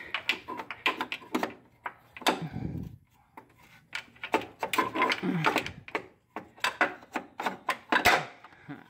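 Water pump being worked loose from a 1.6 N16 engine by hand: a run of irregular metal clicks, knocks and rattles as it is wiggled against its mounting.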